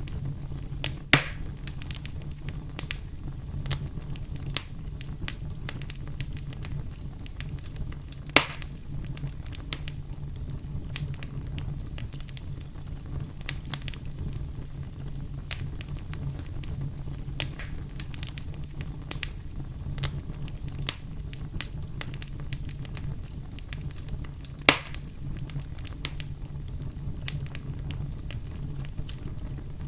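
Campfire crackling: a constant run of small snaps and ticks, with three louder pops, about a second in, about eight seconds in and near the end, over a steady low rumble.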